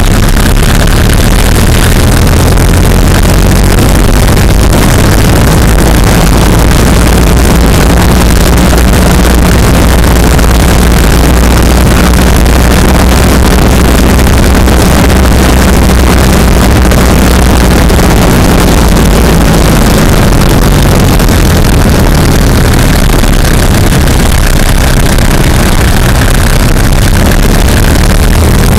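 Road and wind noise of a moving car, picked up right beside the front wheel underneath the car. It is a loud, steady rush with a low hum under it, the level near full scale.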